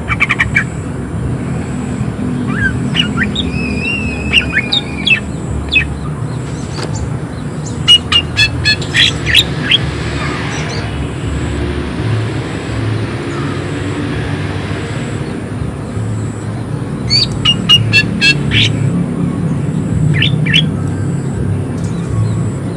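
Cucak ijo (green leafbird) singing in several bursts of sharp, rapid calls with a few whistled, gliding notes, the harsh 'tembakan' song of a bird in full voice. A steady low rumble runs underneath, and a hiss comes in for about five seconds midway.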